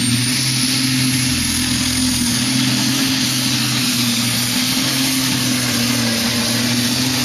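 Pulling tractor's engine running flat out under full load as it drags the weight-transfer sled down the track, held at high, nearly steady revs.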